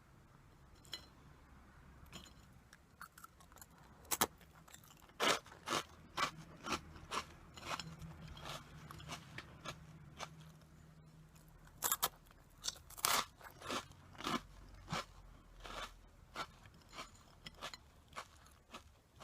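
Close-up crunching and chewing of crisp corn puff snacks, Meiji Curl, in irregular crackly bites, the loudest crunches about four to six seconds in and again around twelve to thirteen seconds.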